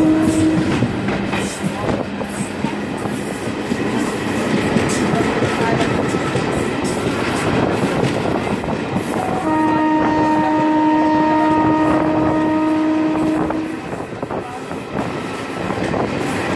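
WAM-4 electric locomotive's horn sounding ahead of the coaches: a short blast at the start, a lower note for a moment after, and a long blast of about four seconds from about nine and a half seconds in. Under it, the steady rumble and clatter of a passenger train running fast on the rails, heard from a coach doorway.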